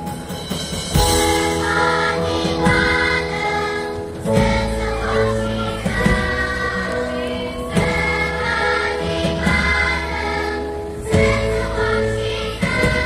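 Children's choir singing a Christmas carol, coming in about a second in over a live band with drums and bass guitar.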